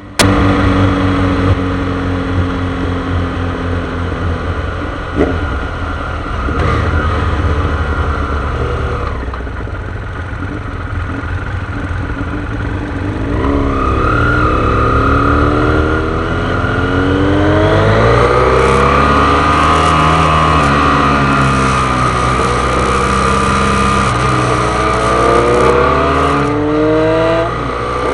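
A motor vehicle engine runs at a steady speed for the first dozen seconds, then revs up and down repeatedly in long rising and falling sweeps, with a steady high whine over it in the second half.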